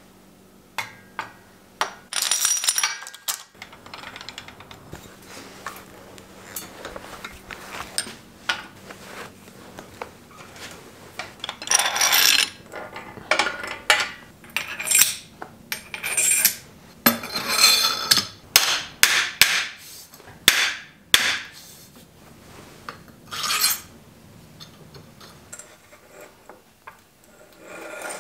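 Metal bike tools and headset parts clinking and scraping as a headset is fitted into a bicycle frame's head tube. Irregular sharp clicks mix with short rasping bursts, densest in the middle of the stretch.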